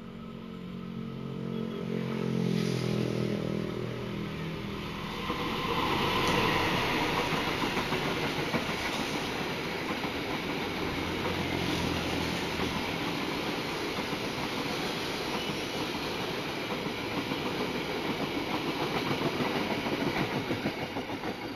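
Indonesian diesel-hauled passenger train passing close by. First the locomotive's engine note grows louder as it approaches. Then, from about five seconds in, comes the steady rush of the carriages rolling past, with the wheels clattering on the rails in a regular rhythm that is plainest near the end.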